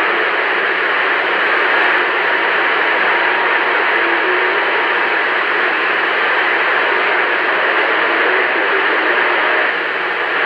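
Galaxy CB radio receiver hissing with steady static through its speaker, a faint thin tone running under the hiss: the channel is open with no station transmitting, its signal meter sitting near the bottom.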